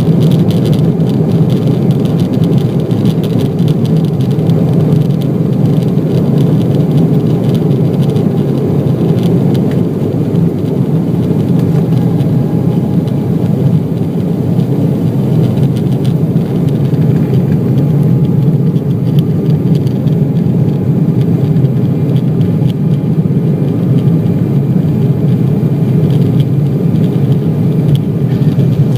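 Embraer 190's twin jet engines at high power during takeoff and climb-out: a steady, loud rush of noise with a faint whine above it.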